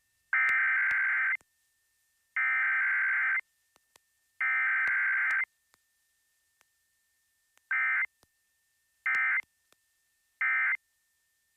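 Emergency Alert System SAME digital header for a Required Weekly Test: three bursts of harsh, buzzy data tones, each about a second long and a second apart, then three short bursts of the end-of-message code.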